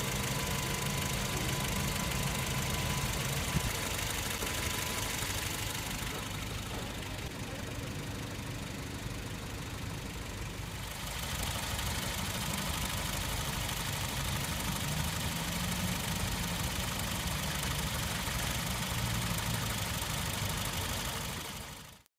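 Honda Freed Hybrid (GP3)'s stock 1.5-litre four-cylinder IMA hybrid engine idling steadily, heard up close from the open engine bay. It gets a little quieter for a few seconds in the middle, then fades out near the end.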